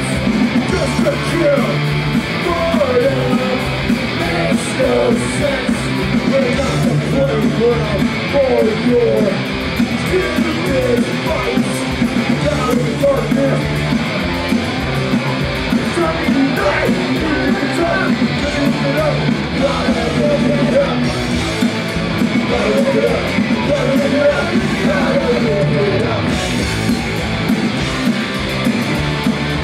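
Punk rock band playing live at full volume: distorted electric guitars, bass and driving drums, with singing over the top.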